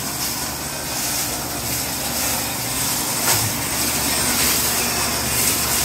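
Steady running noise of an electric concrete mixer tumbling marble gravel and water in its drum to wash it, with hose water spraying.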